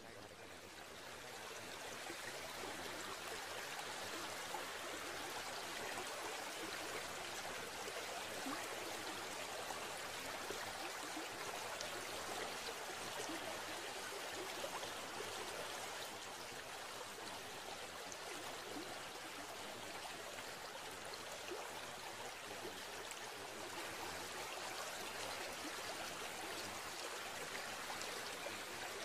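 Steady sound of running water, an even rushing noise that fades in over the first two seconds and then holds level.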